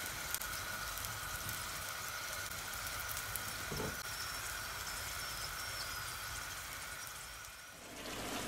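A steady sizzling hiss, like food frying, with a faint steady high tone in it. It dies down just before the end.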